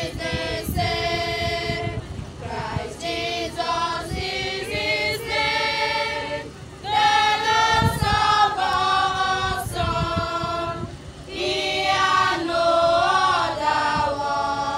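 Women's choir singing a hymn together, in sung phrases separated by short breaks for breath.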